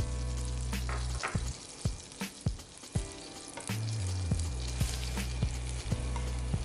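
Garlic slices sizzling and crackling in melted butter in a frying pan. Near the end, a heap of cut shiitake and maitake mushrooms is pushed into the pan by hand.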